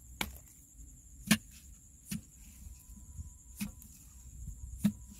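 A wooden digging stick striking into hard, dry mud as a hole is dug out: five sharp thuds about a second apart, the loudest about a second in and near the end.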